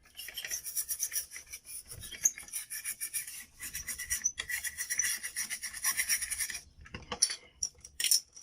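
Rapid back-and-forth rubbing strokes as RAM contacts are scrubbed clean. The rubbing stops about six and a half seconds in, followed by a few light clicks.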